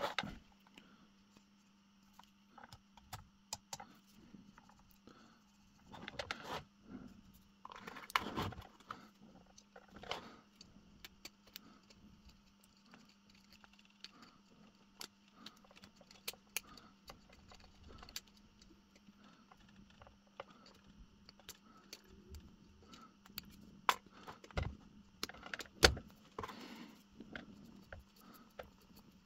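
Small clicks and light knocks from handling a glazed ceramic figurine while swabbing old glue off it with a cotton bud, over a faint steady hum. The sharpest knock comes near the end.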